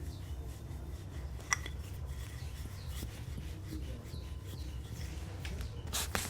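Hands-on massage: light rubbing with a few scattered sharp clicks, the loudest about a second and a half in, over a steady low hum.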